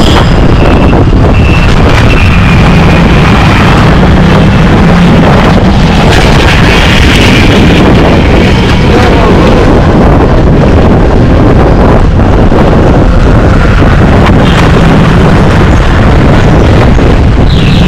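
Loud, steady street traffic noise with wind buffeting the microphone.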